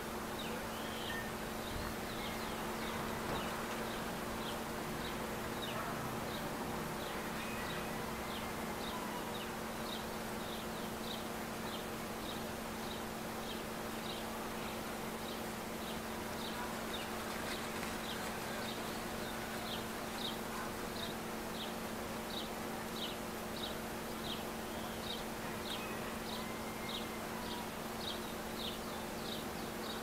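Insects: a steady low buzzing hum, with a short high chirp repeating about twice a second.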